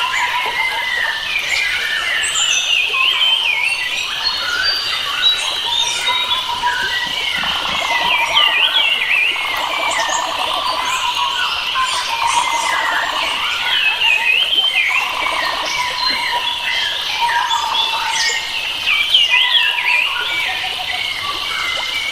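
Several wild birds singing and chirping at once, overlapping whistled phrases that rise and fall, over a steady high background hum, with bursts of buzzy trilling in the middle.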